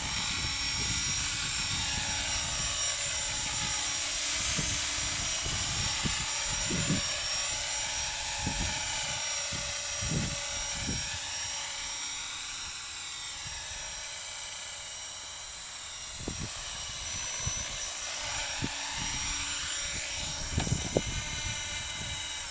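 Thunder Tiger Innovator MD-530 radio-controlled model helicopter flying low: a high-pitched whine from its motor and rotors that slowly rises and falls in pitch as the rotor speed changes. Irregular low buffeting of wind on the microphone runs underneath.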